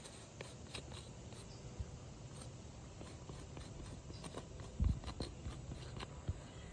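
Scattered light clicks and scrapes of tools being handled on an asphalt-shingle roof, with one dull thump about five seconds in.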